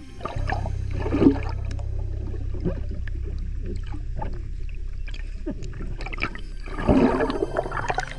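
Underwater sound through a submerged camera: a steady low rumble with scattered clicks, and gurgling bubble bursts about a second in and again near the end.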